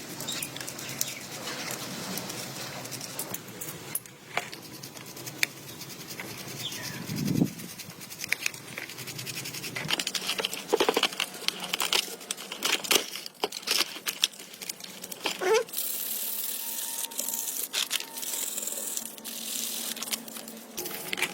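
Hand work on motorcycle parts during a restoration: scraping and rubbing with many irregular sharp taps and clicks.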